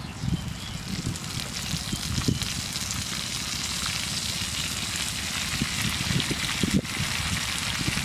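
Chicken livers sizzling in a frying pan as handfuls of fresh greens are dropped in; the sizzle grows louder a few seconds in.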